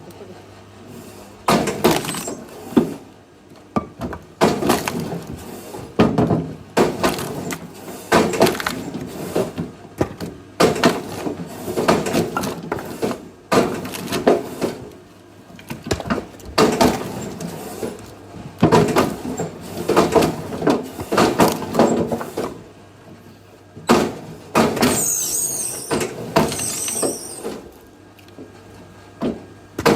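Axe blows on firewood logs, a series of sharp strikes at uneven intervals about a second or two apart, with the wood splitting under them.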